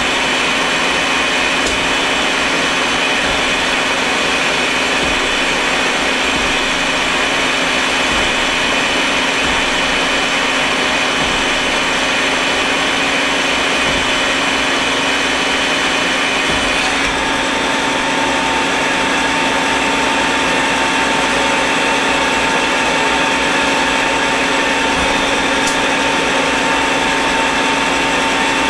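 Citizen A32VII Swiss-type CNC lathe machining a metal part under flood cutting oil: a steady machine whine over constant hiss. About 17 seconds in the tone shifts, one high whine stopping and a lower one starting.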